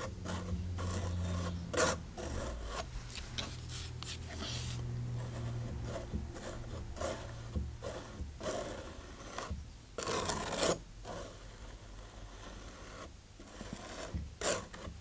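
Steel painting knife scraping and smoothing acrylic texture paste over a canvas patch. It makes a run of irregular scraping strokes, the longest and loudest about ten seconds in.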